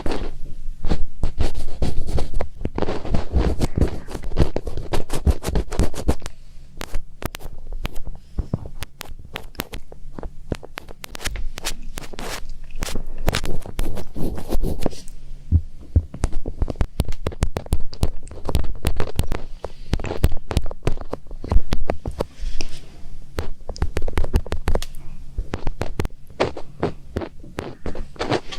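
ASMR finger ear-cleaning: fingertips rubbing and scratching on a microphone's ear, a dense, irregular crackle of scratches over low, dull thumps.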